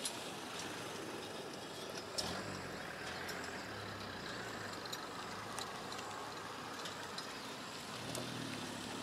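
Steady rushing background noise with a faint low hum through the middle and a few short clicks.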